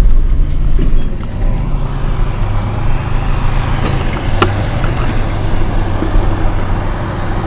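Diesel engine of a big articulated Kirovets farm tractor working under load while pulling a multi-bottom plough, a steady low drone that drops a little in pitch about halfway through. A single sharp click comes at about the same point.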